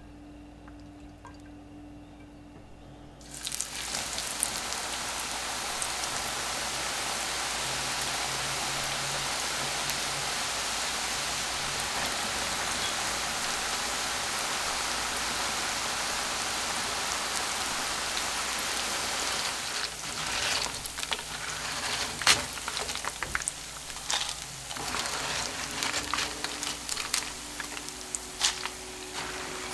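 Corn tortilla strips frying in hot vegetable oil in a nonstick pan: a steady sizzle that starts suddenly about three seconds in. In the second half it turns patchier and crackly, with sharp pops.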